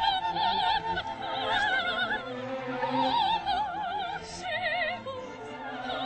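Music: a high operatic voice singing sustained notes with a wide, regular vibrato, in short phrases over a softer accompaniment.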